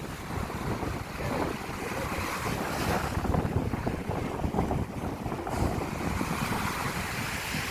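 Strong wind buffeting the microphone with a low, uneven rumble, over the steady wash of sea waves.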